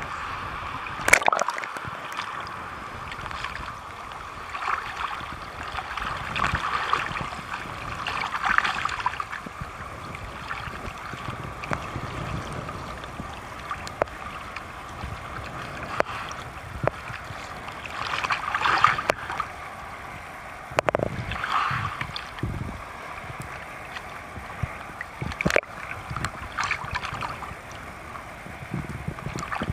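Choppy sea water sloshing and splashing against a camera held at the waterline, swelling and fading every few seconds, with a few sharp slaps of water.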